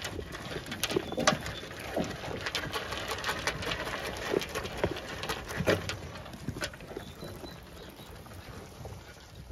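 Zwartbles sheep eating pellets and rolled grain from a metal trough: a busy run of small crisp crunches and clicks, thinning out near the end.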